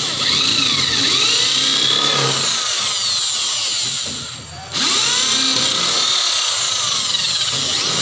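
Corded electric drill running against the fridge's metal body, its pitch wavering as the load changes. It slows briefly about four and a half seconds in, then picks up speed again.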